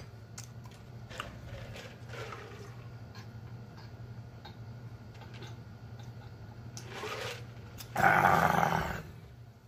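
Soft mouth and swallowing sounds while a man drinks from a pitcher, then near the end a loud, gravelly open-mouthed "ahh" that lasts about a second.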